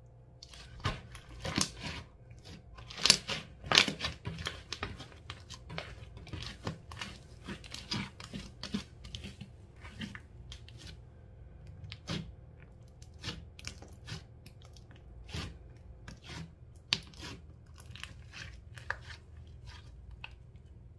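Slime being mixed and squeezed by hand, making irregular crackling pops, thickest in the first few seconds and sparser after.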